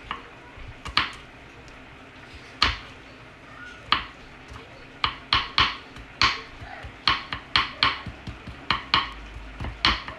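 Kitchen knife chopping garlic cloves on a wooden cutting board, the blade knocking sharply on the board. A few scattered strokes at first, then quicker strokes of about two or three a second from about halfway.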